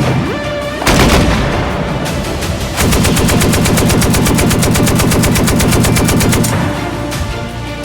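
Suppressed True Velocity machine gun firing: a single shot about a second in, then a long automatic burst of about ten rounds a second from about three seconds in, stopping near six and a half seconds.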